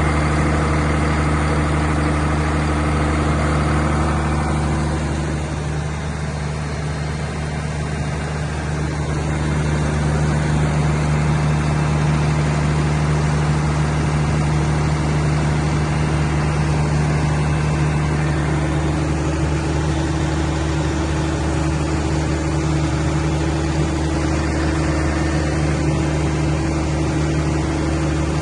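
Open-type 180 kVA Cummins diesel generator set running steadily with an even engine drone, dipping slightly in level about five seconds in and recovering a few seconds later.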